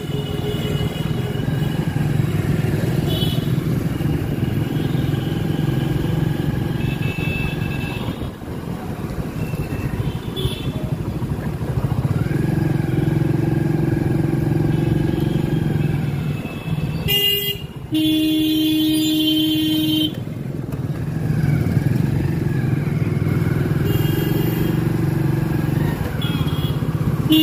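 Motorcycle engine running steadily as it is ridden along a road. About two-thirds of the way through, a vehicle horn gives a short toot and then sounds steadily for about two seconds.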